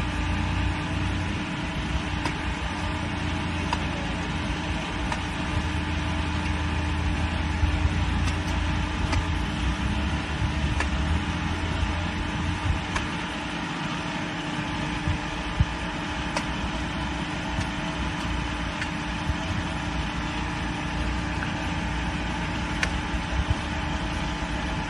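A steady engine hum runs throughout, with a few sharp knocks of a machete striking a green coconut as it is trimmed.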